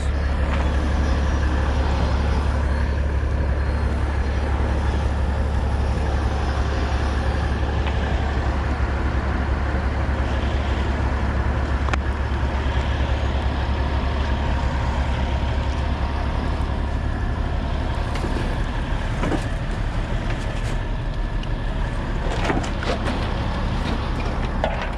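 Semi truck's diesel engine idling steadily, a deep, even rumble. A few light knocks and rattles come near the end.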